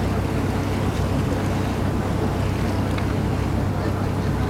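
Steady low drone of a boat's engine underway, with water rushing and wind noise on the microphone.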